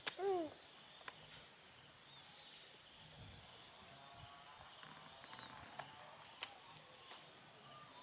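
A single short animal call just after the start, a pitched cry that rises slightly and then falls, lasting under half a second. It is followed by faint outdoor background with a few soft clicks and faint high chirps.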